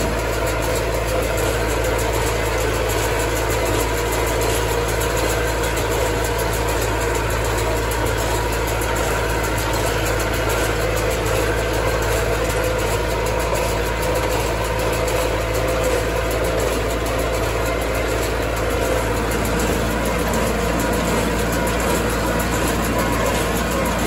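Massey Ferguson tractor engine running steadily, pulling a working small square baler with a bale thrower, at a constant loud drone.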